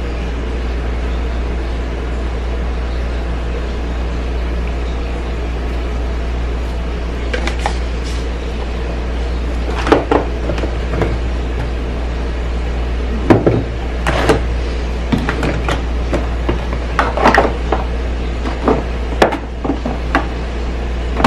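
Steady low hum and hiss of pots boiling on a gas stove, with scattered sharp taps and clicks in the second half as dry seasoning is shaken from a spice shaker into the pot.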